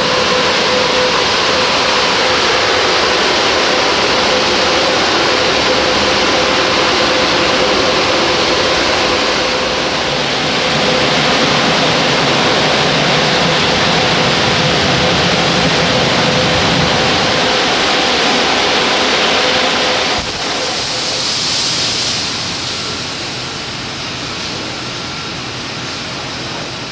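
In-bay automatic car wash equipment running: a loud, steady rushing noise with a steady motor hum. About twenty seconds in, the hum stops and the rush drops to a quieter level.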